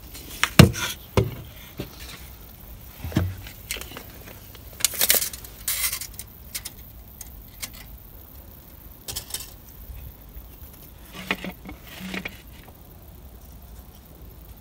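Scattered knocks and small metallic clinks of tools and metal fixings being handled, with a few brief hissy scrapes, while a handrail is being fitted. No drill runs steadily.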